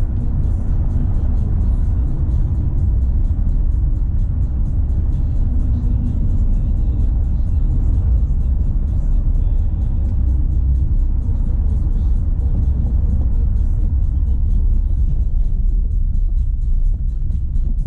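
Steady low rumble of a Renault Sandero Stepway 2 driving on a dirt road, heard from inside the car, with music playing over it.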